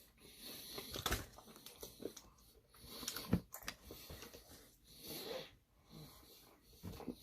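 Close-up eating sounds: wet chewing and sharp mouth clicks from sticky, saucy food, with soft breaths through the nose.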